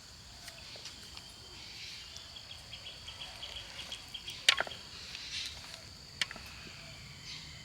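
Faint background with insects chirping in a high, rapid pulsing pattern, and two sharp clicks about halfway through.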